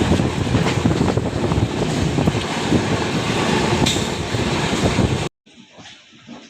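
Passenger train running on the rails: a loud, steady rumble and rattle of the coaches. It cuts off abruptly about five seconds in, and a much quieter sound follows.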